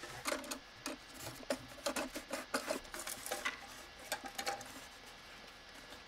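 Light, irregular clicks and taps of hands handling the flapper chain and plastic fittings inside a toilet tank, dying away after about four and a half seconds.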